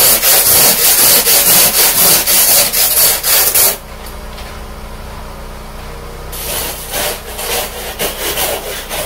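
Scraping snow and ice off an SUV's side window in quick back-and-forth strokes: loud and continuous for about four seconds, then a short lull, then more scattered strokes.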